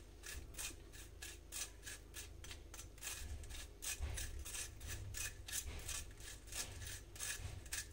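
A spoon scraping lumpy bura sugar through a wire-mesh strainer, breaking up the lumps as it sifts: a repeated scratchy rasping of several strokes a second.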